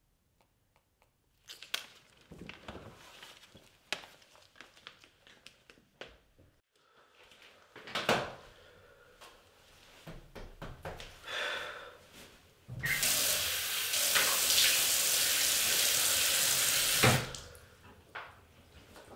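Water from a sink tap runs hard and steady for about four seconds, then cuts off abruptly with a knock. Before it, scattered light knocks and rustles.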